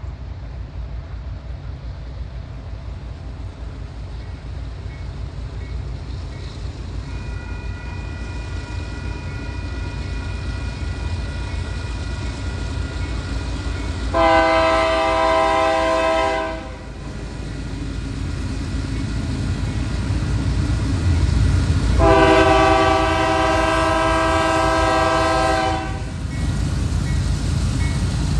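Diesel freight train led by a Union Pacific locomotive approaching a grade crossing, its low engine rumble growing louder as it nears. The locomotive's air horn sounds two long blasts, the first about halfway through for about two and a half seconds and the second near the end for about four seconds. A crossing bell rings faintly underneath.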